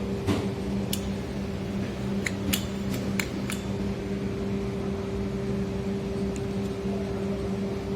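An electric motor running with a steady hum, with a string of sharp clicks over the first few seconds.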